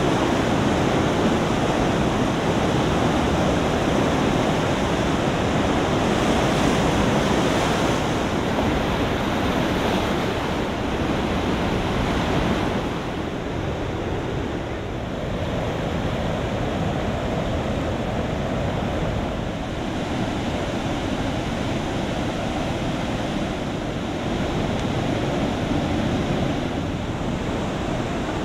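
Flood-swollen river rushing through rapids: a loud, steady roar of churning water, softening slightly about halfway through.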